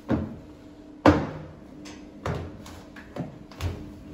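Plastic cat carrier knocking and clattering on a stainless steel exam table as its top is handled and opened: a series of sharp knocks, the loudest about a second in.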